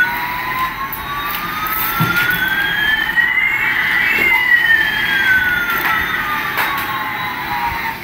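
Electronic sound effect: two tones gliding slowly, one rising and one falling, crossing about halfway through.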